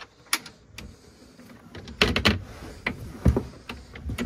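Clicks and knocks of a small boat's tinted plastic cabin doors being unlatched and swung open by hand, their stainless steel hinges and catch rattling. The loudest knocks come in a cluster about two seconds in and again just after three seconds.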